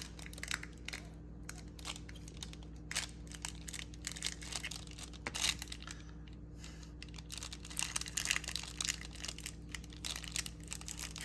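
Thin plastic bag crinkling and crackling as a handheld mini heat sealer is pressed down and drawn slowly along it to seal it shut. The crackles come irregularly throughout, over a faint steady hum.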